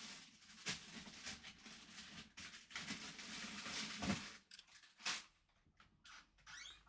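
Close handling noises: continuous rustling and scraping with several sharp clicks, thinning out to a few short sounds after about four seconds.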